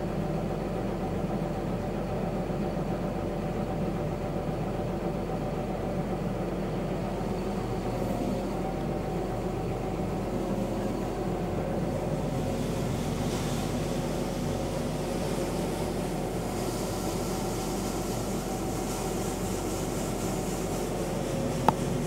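John Deere 8130 tractor's diesel engine running steadily, heard from inside the cab, while it drives the grain cart's unloading auger to empty soybeans into a truck. A hiss builds about halfway through, and a single sharp click comes near the end.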